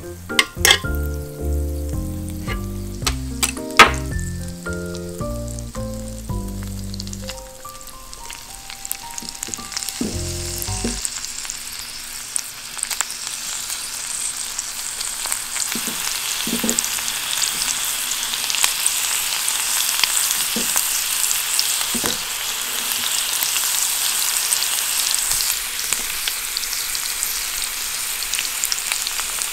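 Salmon strips frying in melted butter on a hot ridged grill pan: a steady sizzle that builds up after the first several seconds and then holds. A few light taps sound partway through.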